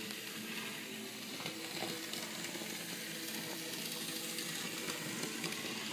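ConCor/Rivarossi 4-6-2 Pacific model locomotive running on its track: a steady whir of the small motor and gearing with wheels on the rails, with a few faint clicks.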